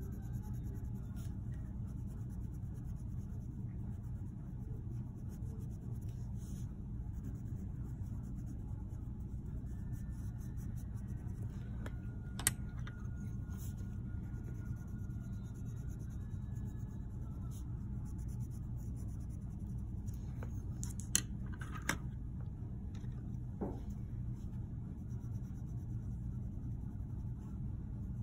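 Colored pencils scratching on paper in short strokes over a steady low hum, with a few sharp clicks as pencils are set down and picked up.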